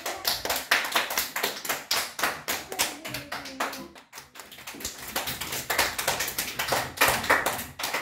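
Children clapping their hands in a fast, steady rhythm, with a brief dip about four seconds in.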